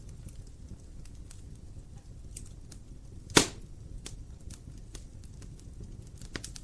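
Wood fire in a fireplace crackling over a low steady rumble of flames, with scattered small crackles and one loud sharp pop of burning wood about halfway through, and another smaller pop near the end.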